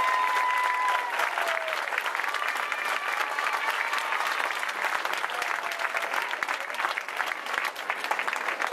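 Audience applauding, with a few high held cheers over the clapping in the first second or two.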